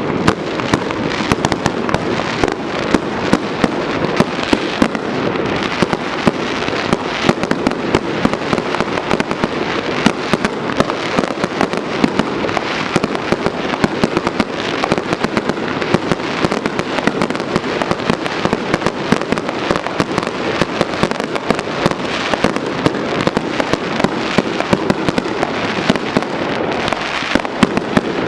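Fireworks display going off: a dense, unbroken stream of sharp cracks and pops with no pause.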